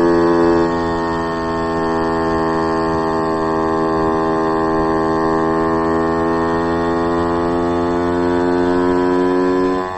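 Babetta moped's single-cylinder two-stroke engine, bored out to 40.5 mm with a Polini carburettor and a BkB resonance (expansion-chamber) exhaust, running under load while riding. The pitch dips slightly about a second in, then climbs slowly and steadily as the moped gains speed, and falls away sharply near the end as the throttle closes.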